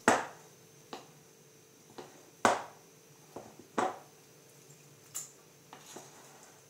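A spoon clinking against an amber glass mixing bowl while scooping thick cake batter: about eight separate taps at uneven intervals, the loudest at the start and about two and a half seconds in.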